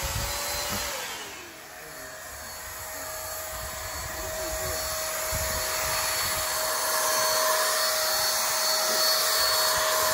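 Handheld electric paint sprayer running steadily, a whining hiss, growing louder after a short dip near the start.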